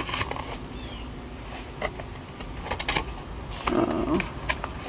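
A DVD box set being handled and its disc-holder pages turned: scattered light clicks, taps and small rattles.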